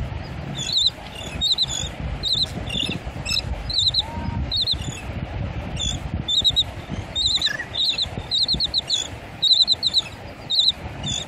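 Royal terns calling: quick runs of short, high chirps, mostly in doubled notes, repeated in bursts about every second.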